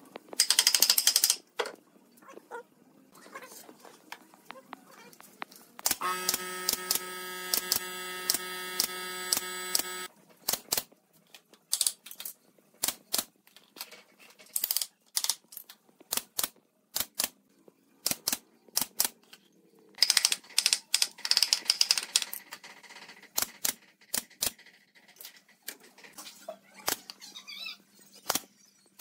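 Hammer knocks on pine framing and sharp shots from a pneumatic nail gun, a long string of separate bangs and clicks with two fast flurries of hits. For about four seconds a steady pitched hum starts and stops abruptly under the knocks.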